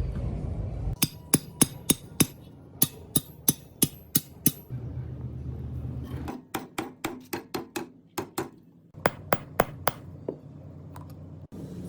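Hand hammer striking steel on an anvil in several runs of blows, about three a second, some with a high metallic ring.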